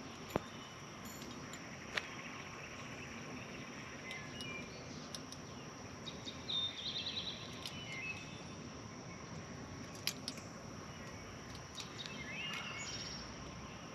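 Quiet outdoor ambience with birds chirping now and then, including a quick trill about halfway through. A few sharp clicks sound in between.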